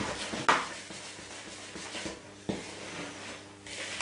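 A spatula stirring flour into cake batter in a large plastic mixing bowl: irregular scraping swishes, with a couple of sharper knocks against the bowl.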